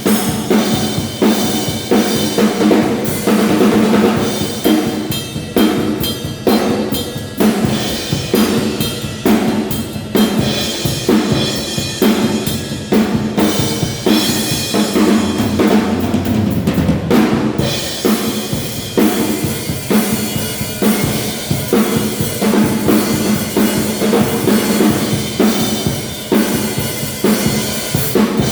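A drum kit played as a continuous groove, with bass drum, snare and cymbal hits, checking the kit's sound. A little past the middle there is a short run of heavier, lower hits with less cymbal.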